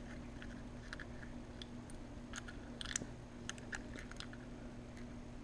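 Faint scattered clicks and light scrapes of a small screwdriver and a tiny screw against the plastic housing of an ATV handlebar kill switch, a small cluster of clicks about three seconds in. A low steady hum runs underneath.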